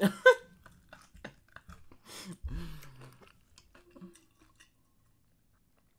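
Close mouth and drinking sounds: a brief loud vocal sound at the start, then small mouth clicks and gulps as a man drinks water from an insulated bottle, with a low knock about two and a half seconds in. Near quiet for the last second or so.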